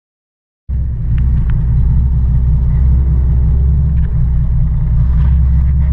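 Car engine running with a steady low rumble, heard from inside the car's cabin, cutting in just under a second in.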